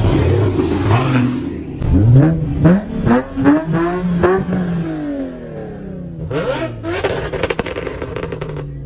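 Car engine revved in a quick series of blips about two seconds in, pitch climbing with each, then dropping back. A second short burst of revs comes later.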